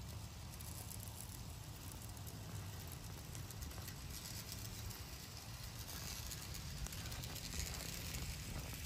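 Quiet patter and rattle of an N scale model train's wheels running along the track, growing louder in the second half, over a steady low rumble.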